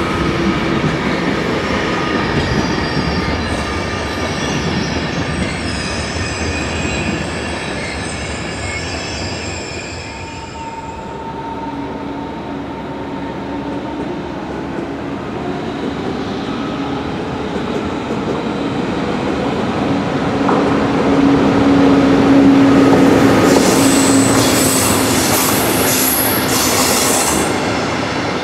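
Passenger coaches of a PKP Intercity train behind a Siemens Taurus 'Husarz' electric locomotive roll past with steady high whines over the wheel noise, dying away about ten seconds in. Then a red double-deck regional train approaches and passes close, its running noise building to the loudest part near the end, with a steady low hum and high wheel squeal.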